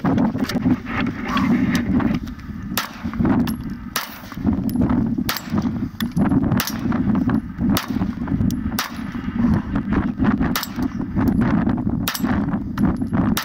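About a dozen 9mm pistol shots from a Canik TP9, irregularly spaced, fired at steel targets. Several shots are followed by the short high ring of a struck steel plate.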